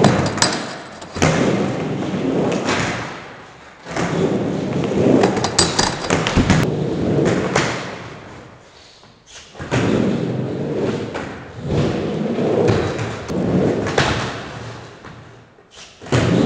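Skateboard wheels rolling over wooden ramps, rising and fading in three runs, broken by sharp clacks of the board and thuds of pops and landings.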